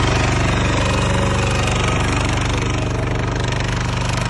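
Kubota power tiller engine running steadily on test, with a fast, even pulsing beat.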